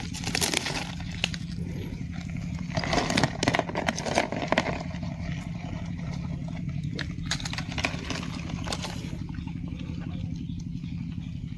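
Dry fallen leaves crackling and rustling in bursts, loudest in the first half, as they are stepped on and moved. Under it runs a steady low motor hum.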